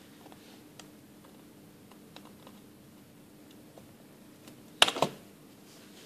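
Small clicks and taps of pliers and hard plastic as the red water inlet filter is pulled from the dishwasher's inlet hose fitting, with a sharp cluster of loud clicks about five seconds in.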